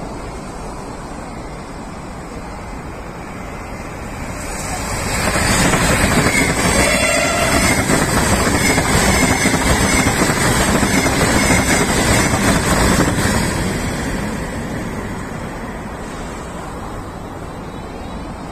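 Sapsan high-speed electric train (Siemens Velaro RUS) passing a platform at speed: a loud rushing noise swells over about a second, holds for about eight seconds as the train goes by, then dies away. A brief tone sounds as the loud part begins.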